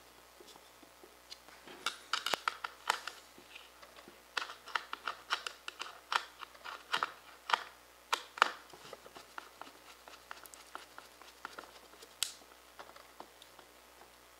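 Small clicks and scrapes of a hand screwdriver turning machine screws through an acrylic mount plate into a rotisserie motor's metal housing, snugged only finger tight. The clicks come thick and fast for several seconds, then thin out to a few scattered ticks.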